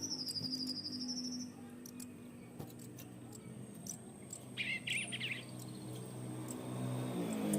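Society finches chirping: a rapid high trill of chirps in about the first second and a half, and a short burst of chirps about five seconds in, over a low steady hum.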